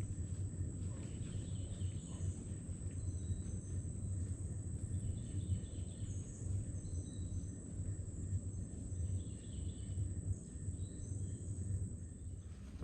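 Swamp ambience with a steady low rumble on the microphone, a constant high-pitched insect drone, and scattered short faint chirps.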